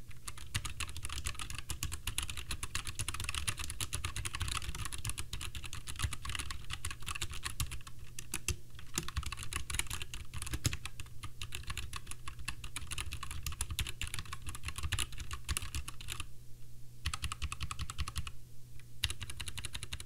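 Continuous fast typing on a Royal Kludge RK61 60% mechanical keyboard with tactile brown RK switches and ABS keycaps: a dense run of keystroke clacks, with brief pauses about nine seconds in and again near the end. The stabilized keys such as the spacebar are kinda loud.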